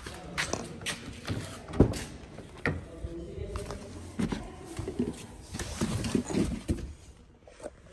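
Someone climbing into an SUV's driver seat: an irregular string of sharp clicks and knocks with rustling from handling, the sharpest knock a little under two seconds in.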